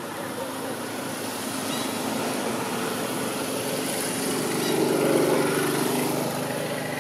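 A motor vehicle passing by: a steady engine hum that grows louder to about five seconds in, then fades. A few faint short high chirps sound over it.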